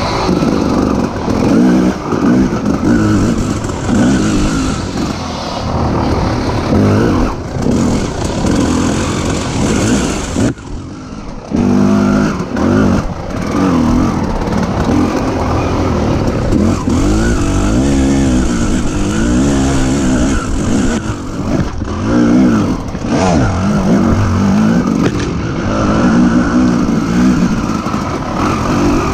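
Dirt bike engine revving up and down as it is ridden through an off-road race course, with a brief drop as the throttle closes about ten and a half seconds in.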